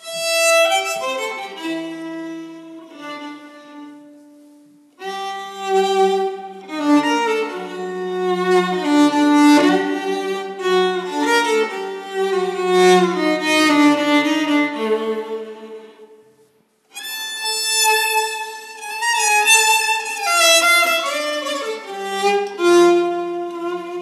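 Solo violin playing a melodic tune, one note at a time. It breaks off briefly about four seconds in and again about sixteen seconds in.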